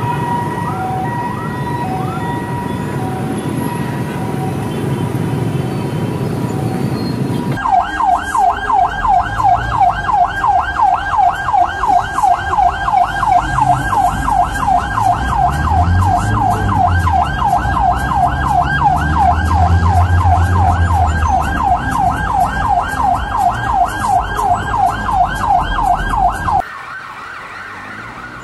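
Ambulance sirens in traffic. At first a siren holds a steady pitch over road noise. About seven seconds in it switches to a loud yelp siren: fast rising sweeps, about two and a half a second. Near the end it cuts off abruptly to a much quieter scene.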